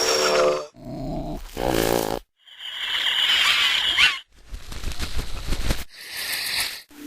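A rapid run of about six short sound effects spliced end to end, each cutting off suddenly. They include animal-like calls, with a harsh, high-pitched cry in the middle as the longest and most prominent.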